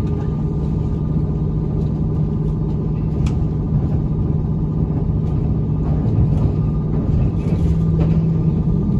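Train running at speed, heard from inside the carriage: a loud steady rumble with a low hum and a few faint clicks.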